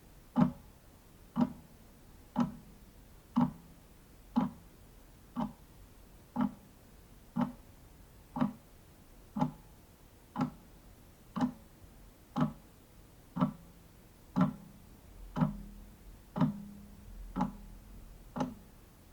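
Wall clock ticking steadily, about one tick a second.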